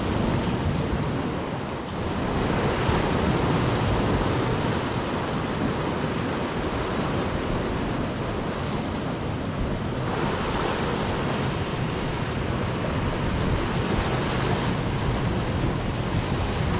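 Sea waves breaking and washing over shoreline rocks, a continuous rushing surf that surges louder about two seconds in and again around ten seconds.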